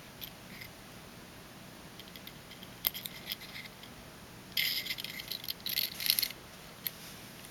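Small metal parts of a Zippo lighter insert (flint spring and screw) clicking and rattling as they are handled and fitted back in: a single click about three seconds in, then a second and a half of light metallic rattling.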